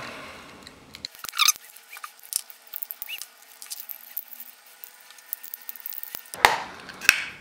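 Small scraping and clicking of a hand tool working on 3D-printed PLA plastic parts, with a few louder clatters near the end as the pieces are handled.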